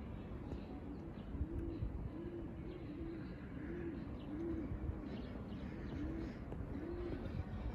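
A pigeon cooing over and over, a steady run of low rising-and-falling coos about one every three-quarters of a second, starting about a second and a half in. Small birds chirp faintly behind it.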